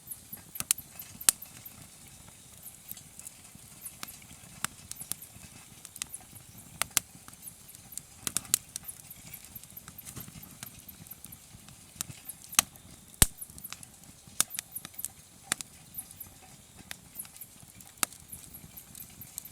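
Wood campfire crackling, with irregular sharp pops and snaps over a faint low rush of flame; the loudest pop comes about two-thirds of the way through.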